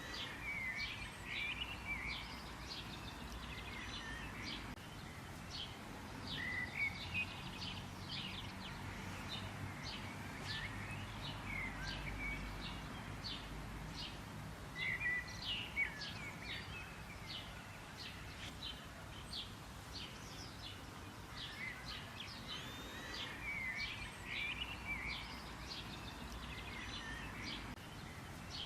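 Several small songbirds chirping: quick short chirps, often a few a second, mixed with warbled phrases, over a faint low background rumble.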